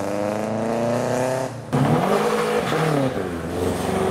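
Car engines accelerating away on a wet road: a Subaru Impreza's flat-four climbing in pitch. About halfway in, a second car, a BMW saloon, takes over, its engine pitch dipping and then climbing again as it pulls away.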